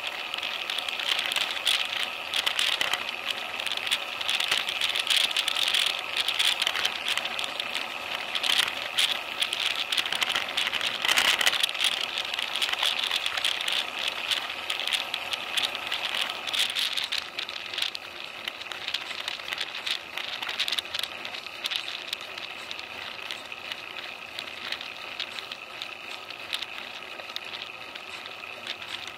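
Rattling and road noise from a bicycle-mounted Cycliq camera while riding on a lane: dense clicks over a steady rushing noise, a little quieter after about 17 seconds.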